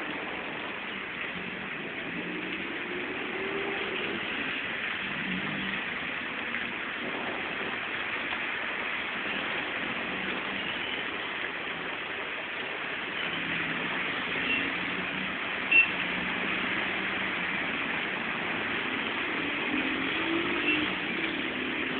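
Heavy rain falling steadily in a downpour, with a vehicle engine running faintly underneath. A single sharp click stands out about three-quarters of the way through.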